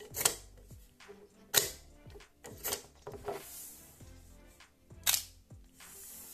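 Background music with about five sharp, irregularly spaced clicks and snaps of a small plastic toy being handled, the loudest about a second and a half in and about five seconds in.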